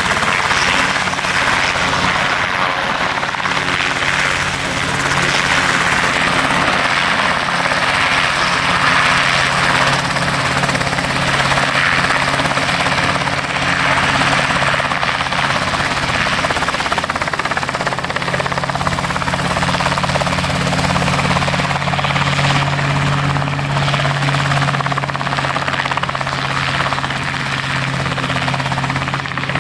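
RotorWay Exec 90 light kit helicopter running steadily: a continuous engine drone under a dense rush of rotor noise.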